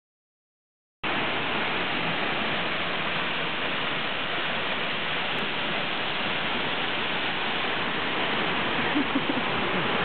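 Steady, even rush of Tunnel Falls, a tall waterfall plunging into its pool, cutting in suddenly about a second in.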